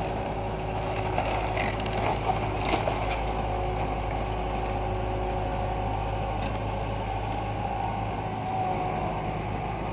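A John Deere backhoe's diesel engine runs steadily as it demolishes a house. There are a few sharp knocks or cracks about two to three seconds in.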